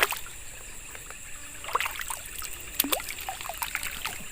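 Water splashing and dripping in irregular small strokes as a hooked snakehead is brought in from a shallow ditch, the largest splash nearly three seconds in, over a steady high-pitched background hiss.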